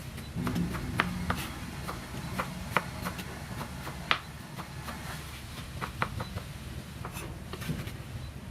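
Irregular light clicks and knocks of kitchen utensils during food preparation, about one or two a second with uneven spacing, over a low steady hum.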